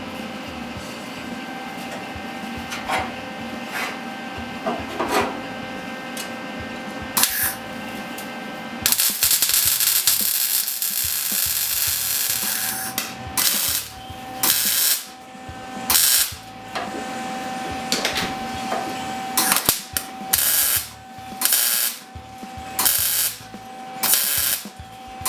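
Welding arc crackling as holes in sheet metal are filled against a copper backing paddle. It begins about a third of the way in with one run of a few seconds, then goes on in short bursts about every second and a half.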